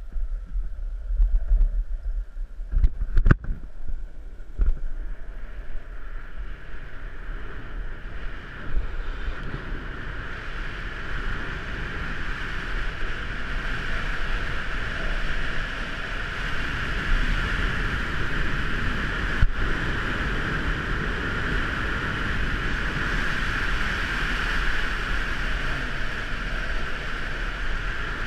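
Longboard wheels rolling on asphalt, with wind rushing over the helmet camera's microphone, growing louder and steadier from about ten seconds in as the board picks up speed. A few sharp clicks about three seconds in, and one more a little before twenty seconds.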